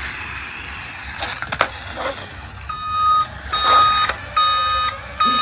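Electronic beeping: a steady high tone pulsing in even beeps about half a second long, starting almost three seconds in, after a few light clicks.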